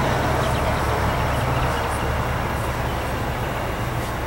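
Steady low engine hum with an even noisy rush over it, like a vehicle or machine running.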